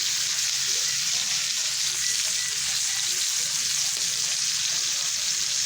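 Wagyu ribeye steak and a small scrap of steak sizzling in butter in a frying pan, a steady hissing, crackling fry as the flipped steak sears on its second side.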